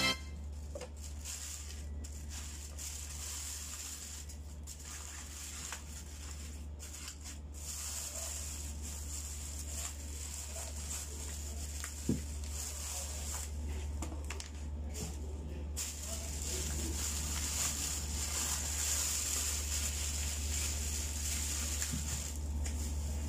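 Aluminium foil crinkling and plastic bags rustling as foil-wrapped takeaway food trays are handled, with one sharp knock about halfway through as a tray is set down on a wooden cutting board. A steady low hum runs underneath.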